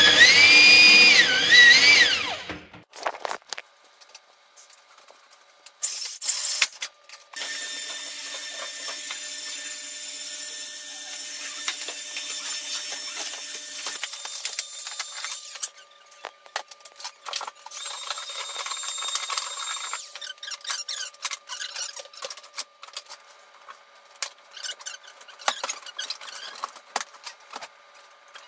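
Electric drill with a hole saw cutting through a particleboard shelf, its motor pitch rising and falling under load, stopping about two and a half seconds in. Later a drill whirs steadily for about eight seconds and again briefly, among scattered knocks and clicks.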